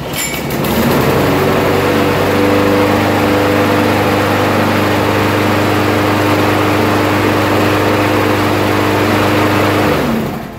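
Troy-Bilt self-propelled lawn mower's Briggs & Stratton 625 series single-cylinder engine starting, picking up to a steady run within about a second and running evenly for about nine seconds before cutting out near the end. It keeps running instead of dying after a second, the sign that its dirty carburetor has been cleaned and the fault cured.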